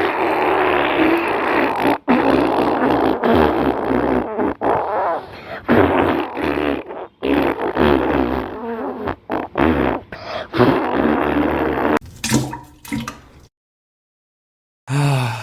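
Long, wet, sputtering fart sound effect: a run of gassy bursts broken by short gaps, used for straining on the toilet, that cuts off abruptly about thirteen seconds in.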